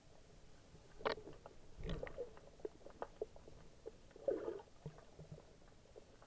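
Muffled underwater sound picked up through an action camera's waterproof housing: scattered small clicks and pops, a sharp click about a second in, a low thump around two seconds and a short rush of noise past the four-second mark.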